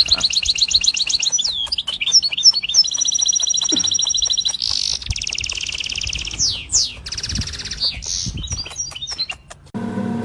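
A wild songbird singing a long, varied song of fast trills, repeated whistled notes and chirps. The song breaks off near the end.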